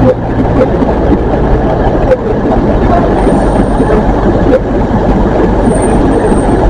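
GWR Class 150 Sprinter diesel multiple unit running past on the line beside the platform. Its diesel engine drone fades in the first second or two, under a steady wheel-on-rail rumble with a few sharp clunks. A faint high squeal comes twice in the second half.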